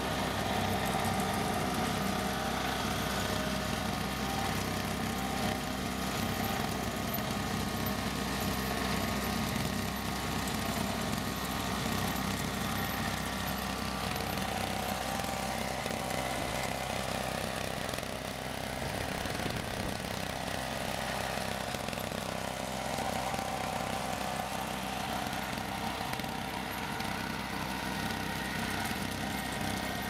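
Snow blower's small engine running steadily as the remote-controlled rig clears snow, with a slight dip in level about two-thirds of the way through.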